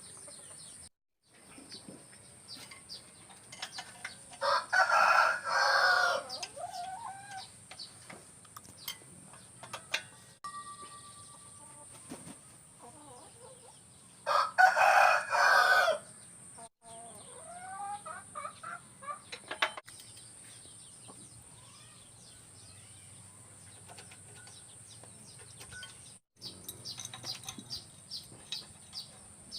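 A rooster crowing twice, about five and fifteen seconds in, each call about two seconds long, with scattered light clicks in between.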